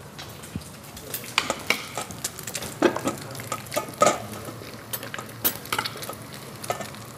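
Ingredients being stirred in a bowl: an irregular run of clinks, taps and scrapes, loudest about three and four seconds in.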